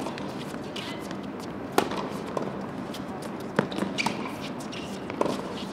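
Tennis rally: sharp racket-on-ball hits about every second and a half, with fainter knocks between them.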